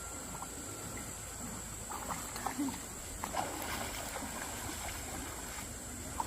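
Pond water trickling and sloshing, with a few small splashes about two to three and a half seconds in.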